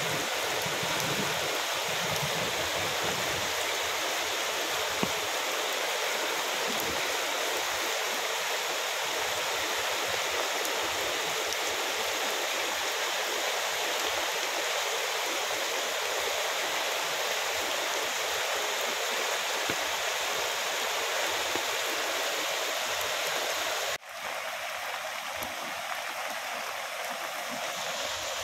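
Floodwater rushing steadily down a street. About four-fifths of the way through, the sound drops out for an instant, then the rush goes on a little quieter.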